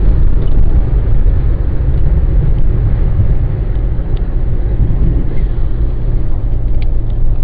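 Loud, steady rumble of a car's engine, road and wind noise heard from inside the cabin at speed.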